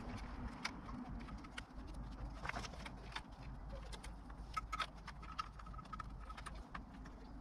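Quiet, scattered clicks and light taps of hands handling the plastic rear undertray and fasteners of a Kawasaki Ninja 1000SX's tail section.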